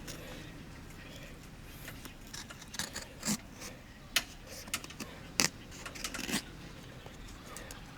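Irregular light clinks and knocks of handled objects, a handful of sharper ones between about three and six and a half seconds in, over a low steady background.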